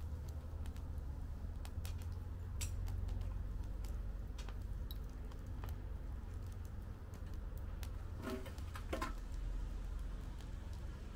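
Wood fire burning in a fire pit, crackling with irregular sharp snaps and pops over a low steady rumble; a brief cluster of pops comes about eight to nine seconds in.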